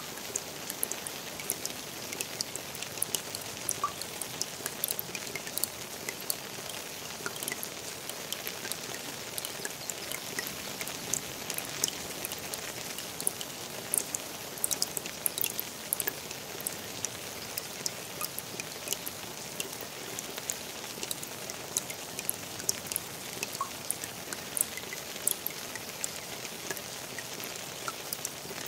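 Steady rain falling on the water of a garden pond: a soft, even hiss broken by many sharp individual drop ticks.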